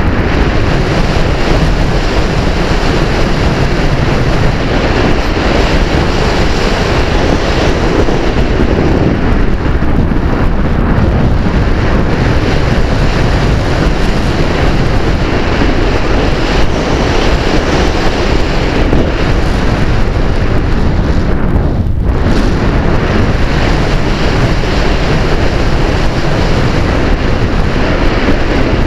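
Loud, steady wind noise from air rushing over the microphone of a camera riding on a flying Easy Glider RC model, with a brief dip about 22 seconds in.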